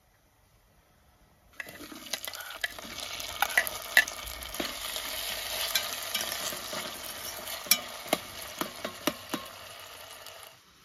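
Chopped tomatoes and green peppers frying in an enamel pot, sizzling as they are stirred, with a metal spoon clicking against the pot. The sizzle starts about a second and a half in and cuts off just before the end.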